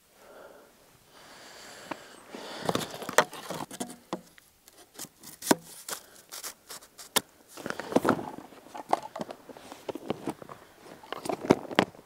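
Stand-up paddleboard gear being handled: many sharp clicks and knocks as the paddle is put together and moved about, with rustling in the first few seconds.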